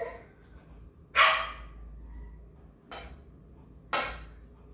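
A dog barking: three short barks over about three seconds, the first the loudest.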